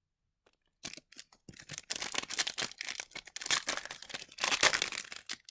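A hockey card pack's foil wrapper being torn open and crinkled, a dense run of crackling rustles that starts about a second in.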